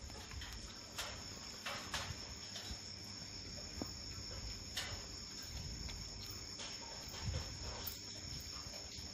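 A steady, high-pitched insect trill, with a few faint clicks and taps scattered through it.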